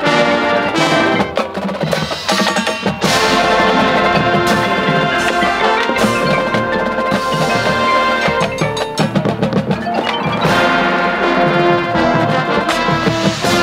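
Marching band playing its field show music: mallet percussion and bell-like struck tones stand out over sustained band chords, with big full-band accents about three seconds in and again near ten seconds.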